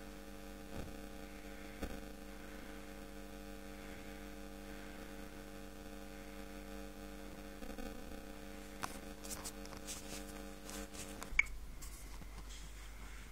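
A steady electrical hum made of several steady tones, which cuts off suddenly with a sharp click about eleven seconds in. A scatter of faint clicks comes in the few seconds before it stops.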